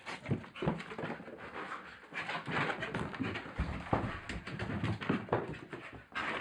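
Staffordshire bull terrier playing excitedly close to the microphone: a quick, irregular run of breathy noises mixed with scuffles and knocks.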